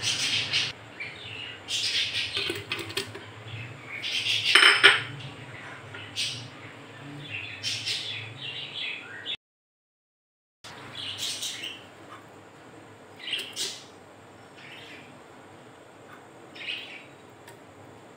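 Metal pressure cooker pot and utensils clattering and clinking as chopped vegetables are dropped in, in irregular bursts, with birds chirping in the background. The sound cuts out completely for about a second midway.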